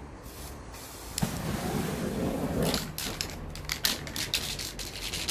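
A sudden whoosh about a second in, as the spray paint on the painting catches fire, lasting about a second and a half. Then quick rattling clicks from the mixing ball of a spray-paint can being shaken.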